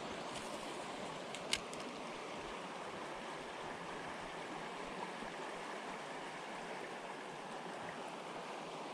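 River water running steadily with an even rush, and a single sharp click about a second and a half in.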